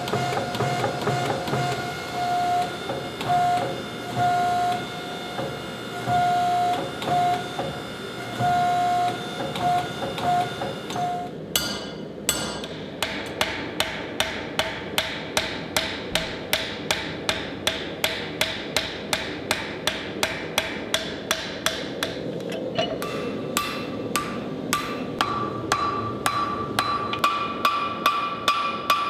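Hammer blows on hot steel in a blacksmith's forge, striking evenly at about three blows a second from about twelve seconds in. Before that there is a steadier ringing, with a tone that comes and goes.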